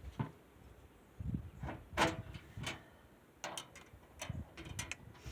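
Metal wheelbarrow brace and frame parts clanking and clicking as the brace is slipped over the bolts, a loose series of knocks with the loudest about two seconds in and a quick run of sharp clicks near the end.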